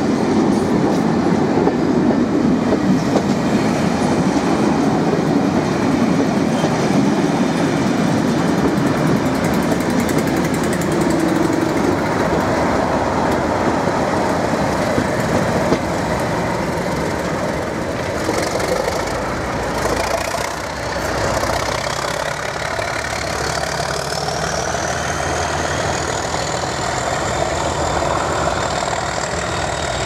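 A rake of coaches rushing past with steady wheel-on-rail clatter. After a cut about halfway through, a Colas Rail Class 37 diesel locomotive's English Electric engine runs, with a high whine that rises steadily over the last several seconds.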